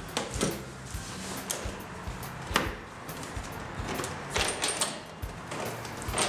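Scattered knocks, clicks and rustles of cardboard packaging and parts being handled while a lawn mower is unboxed, with one sharper knock about two and a half seconds in and a short run of clicks near the end.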